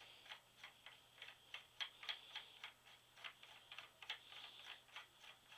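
Faint clicking, about three clicks a second, of a Hastings extended turkey choke tube's metal threads as it is screwed by hand into a 12-gauge shotgun barrel.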